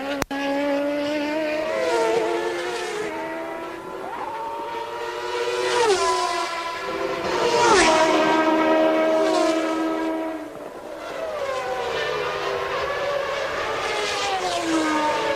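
Several 1992 Formula One cars' 3.5-litre naturally aspirated racing engines screaming at high revs as they pass. The engines overlap, and each one's pitch drops sharply as it goes by, with the loudest passes about six and eight seconds in. There is a brief dropout just after the start.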